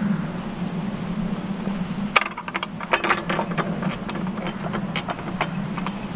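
Irregular sharp clicks and crackles, thickest from about two seconds in, over a steady low hum. They are the footsteps and handling noise of someone walking a wet grassy path with a handheld camera.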